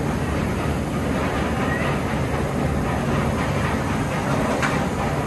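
Dive roller coaster train rolling along its steel track toward the vertical drop, a steady rumble.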